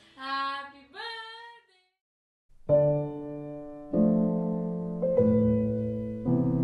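A toddler's voice making two short sing-song babbling calls that slide in pitch, then a brief silence, then slow piano music begins: sustained chords struck about once a second and left to ring.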